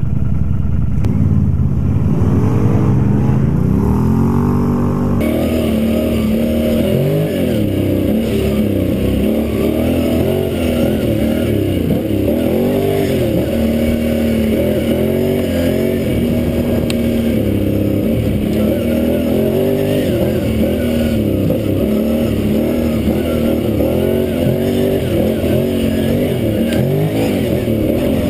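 Can-Am ATV engine running under way on a dirt trail, its pitch rising and falling over and over as the throttle is worked.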